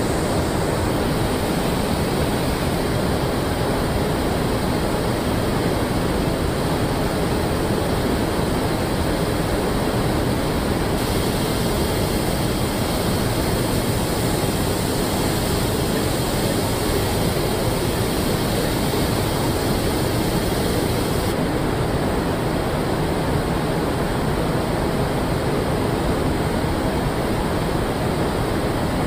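Steady rushing noise of car-plant ambience, with no distinct machine strokes. The hiss grows brighter about eleven seconds in and duller again about ten seconds later.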